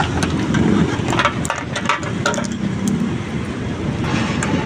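Steady vehicle engine and road rumble heard while riding, with a few short sharp clicks or rattles scattered through it.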